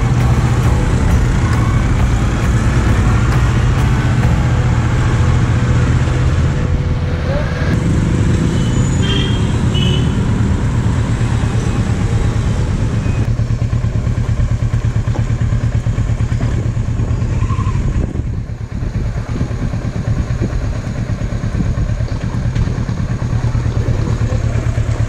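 Kawasaki Versys 650's parallel-twin engine running steadily while riding, heard from on the bike with road noise over it. It goes briefly quieter about eighteen seconds in.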